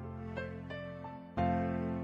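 Instrumental background music of sustained chords, with a new chord coming in about two-thirds of the way through.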